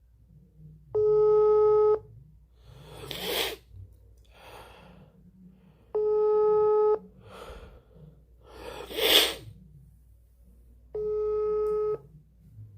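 Telephone ringback tone of a call still ringing out: a steady beep about one second long, repeating every five seconds, three times, in the Brazilian ring cadence. Between the rings a person breathes out heavily twice; the second breath is the loudest sound.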